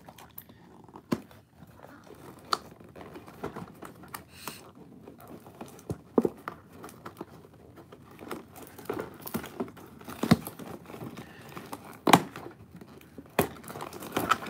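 Cardboard toy box and its clear plastic window being pulled open by hand: rustling and crinkling, broken by a series of sharp snaps and clicks, the loudest two near the middle and toward the end.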